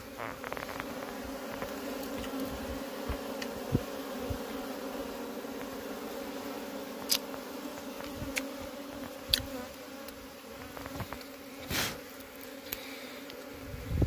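A swarm of honeybees buzzing around their opened wild nest: a steady, even hum, with a few short sharp clicks and taps scattered through.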